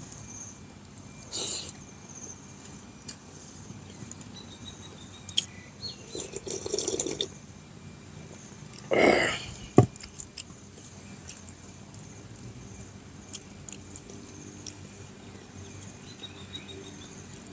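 Mukbang eating sounds: a man eating rice and fish-head soup by hand, with chewing and mouth noises. The loudest is a slurp of broth from a coconut-shell bowl about nine seconds in, followed at once by a sharp knock. Insects hum steadily behind.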